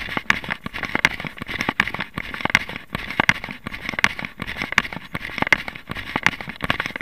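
A runner's footsteps striking a tarmac path in a steady rhythm, a few steps a second, with the jostling of a handheld camera carried at running pace.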